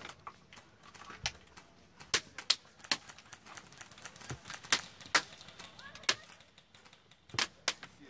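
Airsoft guns firing single shots, sharp short cracks at irregular intervals, about a dozen in all.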